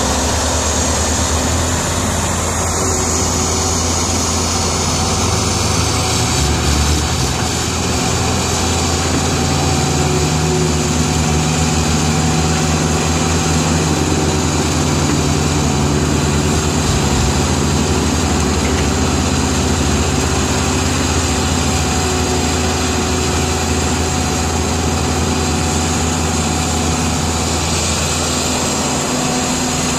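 Heavy diesel engines running steadily: a Cat E120B hydraulic excavator's engine close by, with six-wheel dump trucks driving on the site.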